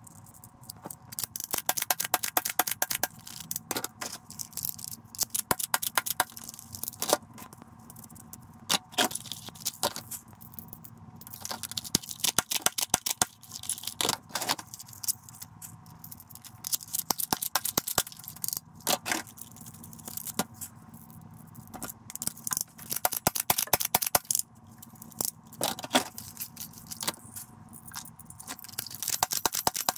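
Toy guns clattering and knocking together as they are rummaged through and pulled out of a cardboard box, in repeated clusters of rattles, clicks and scrapes.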